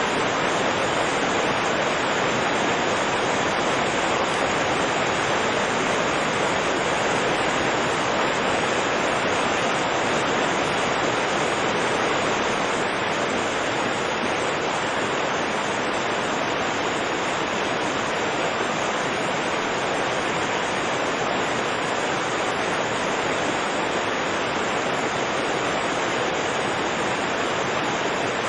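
Fast-flowing river rushing over rapids: a steady, even roar of churning water.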